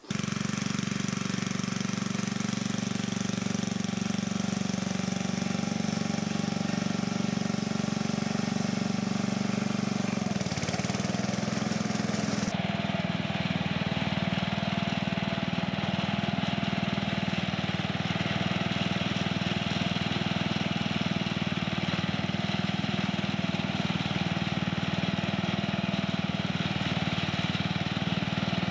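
Belt-driven bench grinder running steadily after being switched on, a motor hum with a rattly mechanical edge. Its pitch dips briefly about ten seconds in, then holds steady again.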